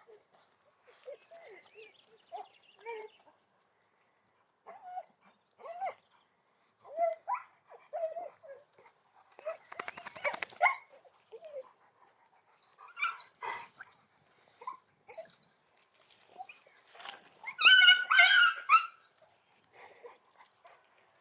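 Dogs whining and yapping in short, high-pitched calls, with louder clusters of barks about ten seconds in and again near the end.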